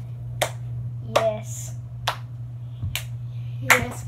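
Finger snaps in a steady beat, about one every 0.8 seconds, over a steady low hum, with brief vocal sounds about a second in and near the end.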